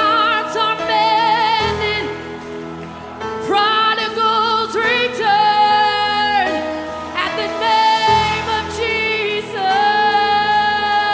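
Worship music: a singer holds long, wordless sung notes with vibrato over sustained instrumental backing.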